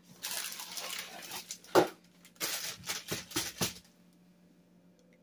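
A cardboard box of baking mix being torn open by hand, then its plastic inner bag rustling and crinkling as it is pulled out. The crisp tearing and crinkling strokes last about four seconds, with a sharp one about two seconds in the loudest.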